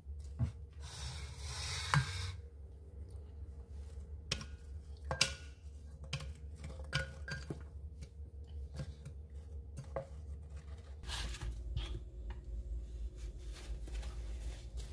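Frozen strawberry pieces dropped by hand into a glass blender jar: scattered small taps and clunks against the glass, with a brief rustle about a second in, over a steady low hum.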